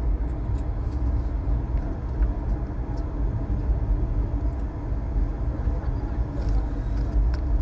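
Steady low rumble of a moving passenger train heard from aboard the coach, with a few faint clicks over it.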